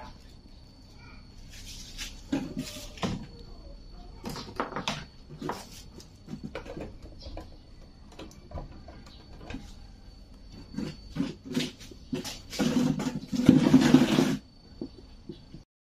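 Scattered knocks and clicks of objects being handled, with a louder rustling noise lasting about two seconds near the end.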